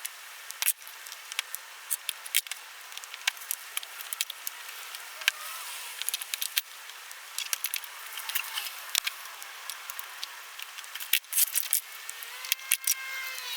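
Irregular light clicks and taps, as of small hard objects being handled, with faint brief squeaks around the middle and near the end.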